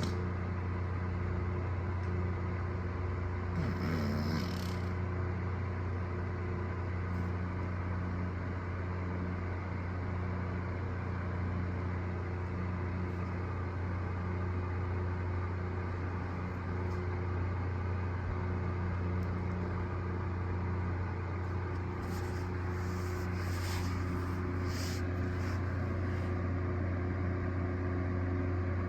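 Steady low machine hum throughout, with a brief wavering low sound about four seconds in and a few short crackles near the end.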